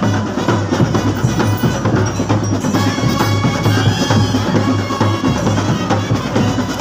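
Percussion-heavy music: fast, steady drumming with ringing metallic tones over it, the ringing growing stronger about halfway through.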